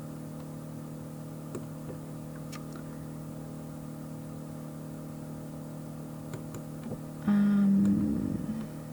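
Steady low electrical hum with a few faint clicks. Near the end a voice briefly hums a held, wavering tone for about a second and a half.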